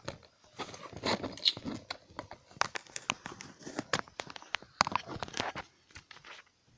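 Handling noise from a phone being moved about on its stand to find a new angle: irregular clicks, taps and rustles close to the microphone, dying away near the end.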